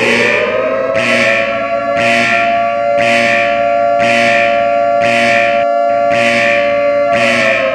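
Civil defense siren in a homemade emergency alert alarm: its wail rises to a steady pitch, holds, and begins to fall near the end. A regular ringing hit repeats about once a second underneath.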